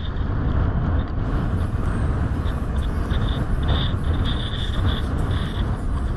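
Strong wind buffeting a camera's microphone as a steady low rumble, with water rushing and splashing. A faint high whistle comes and goes over it.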